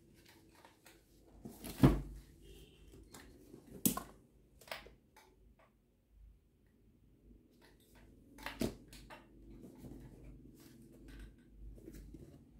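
Quiet room with a faint steady hum, broken by a few sharp clicks and knocks of objects being handled and set down, about two seconds in, four seconds in and near nine seconds in.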